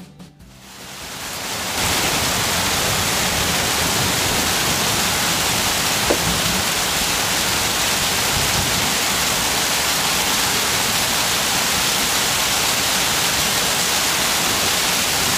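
Heavy thunderstorm rain pouring down, a loud steady hiss that fades in over the first two seconds and drowns out everything else. A single brief click about six seconds in.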